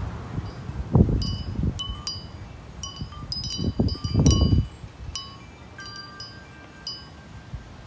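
Wind chimes ringing in the wind, with many quick metallic strikes whose high tones ring on. Low rumbling swells come about a second in and again around four seconds in.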